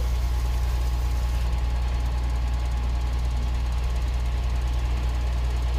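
Diesel engines of truck-mounted mobile cranes running steadily with a low, unbroken drone while the cranes hold a heavy machine frame in a tandem lift.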